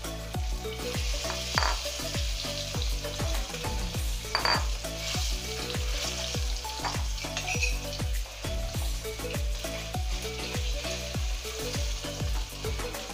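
Masala-coated whole fish shallow-frying in hot oil with curry leaves and garlic, a steady sizzle that grows louder about a second in as more fish are laid into the pan, with sharp spits of oil about a second and a half and four seconds in.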